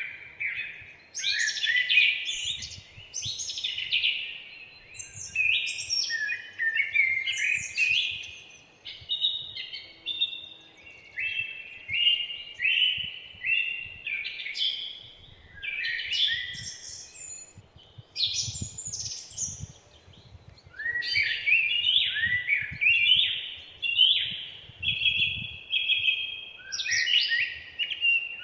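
Forest songbirds singing: a continuous run of overlapping chirping and warbling phrases, each lasting a second or two, with brief lulls between them.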